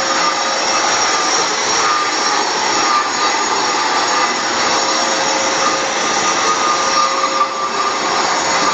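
Bosch concrete grinder with a diamond wheel grinding down high spots on a concrete floor, a dust extractor running with it: a steady high whine over a rushing noise.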